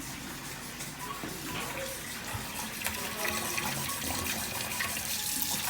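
Water running steadily from a tap into a sink while soapy hands are washed under it.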